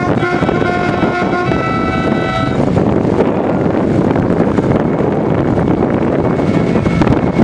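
A vehicle horn held in one steady note, cutting off about two and a half seconds in, followed by the rumble of driving on a dirt road with wind on the microphone.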